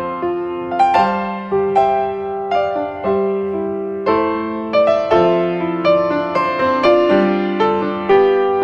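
Background piano music: a slow melody of single struck notes and chords, each fading as it rings, a new one every half second to a second.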